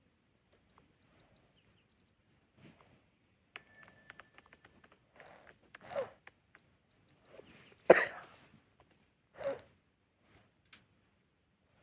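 A person coughing three times, about a second and a half apart, the middle cough the loudest; they are a bit sick. Faint high chirping comes in short runs before and between the coughs.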